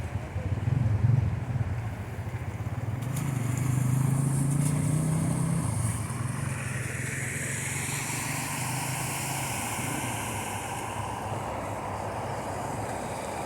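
A motor vehicle engine running close by, with a steady rushing hiss over it.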